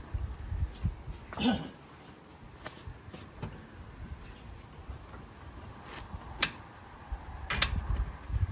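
Scattered sharp clicks and knocks of hands and tools working among engine parts, the loudest about six and a half and seven and a half seconds in, with a short grunt-like voice sound about a second and a half in and some low rumble near the start.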